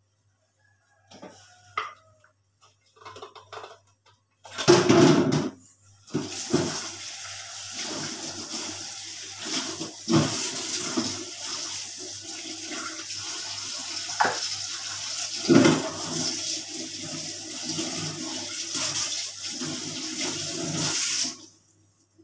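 Water running in a steady rush that cuts off abruptly near the end. It is preceded by a few light knocks and a loud splashy burst in the first seconds.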